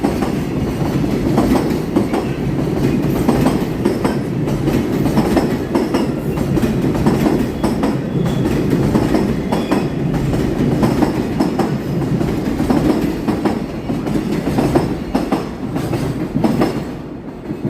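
Freight train rolling past a level crossing: a steady rumble with repeated clicking of wheels over rail joints, easing slightly near the end.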